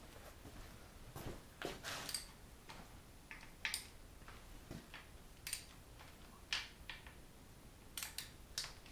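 Scattered light metallic clicks and taps, about a dozen spread irregularly, a few with a brief high ring: tools and engine parts being handled.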